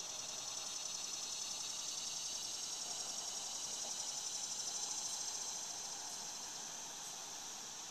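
Summer insect chorus: a high, rapidly pulsing buzz that swells and then eases off over several seconds.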